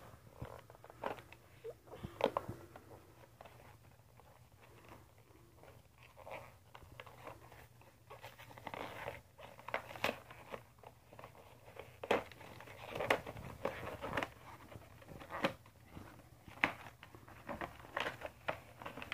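Cardboard and plastic packaging of a Pokémon trading card deck box being torn open and handled: irregular crinkles, crackles and sharp snaps, growing more frequent and sharper in the second half.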